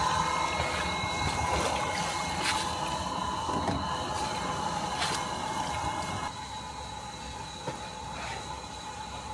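Water running and splashing, with a steady machine hum under it; the sound drops noticeably in level about six seconds in.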